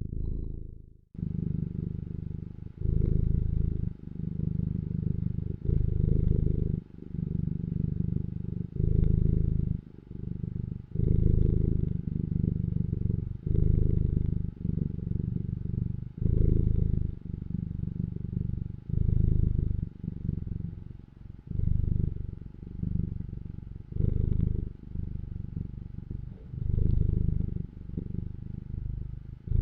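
Domestic cat purring close to the microphone: a low continuous rumble that swells and eases with each breath, about every two and a half seconds, starting after a brief gap about a second in.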